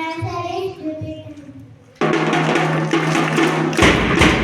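A child's voice trails off in the first second. About halfway through, a loud burst of percussive music starts suddenly, with heavy bass drum beats near the end.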